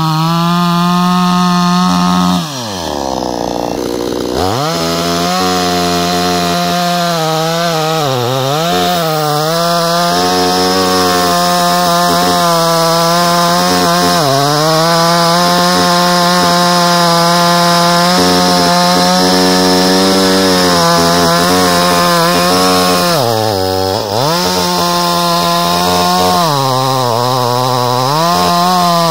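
Two-stroke petrol chainsaw running at high revs, cutting through a thick log, its engine note dipping several times as the chain bogs down in the wood. About two and a half seconds in, the revs fall sharply for about two seconds, then climb back up.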